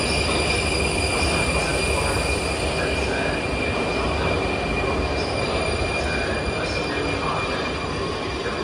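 Prague metro train, an 81-71M set, pulling into the platform and slowing: a steady rumble of the cars running past, with a steady high squeal from the wheels and brakes over it.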